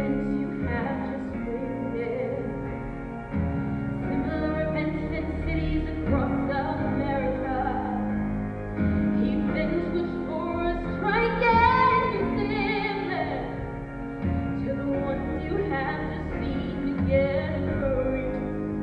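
Music: a woman singing long, wavering notes over sustained chords.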